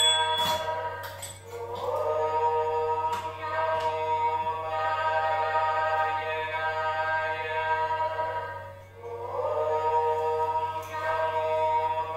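Devotional chant-like singing: long held vocal notes that slide up into each new phrase, with short breaks between phrases near the start and about nine seconds in.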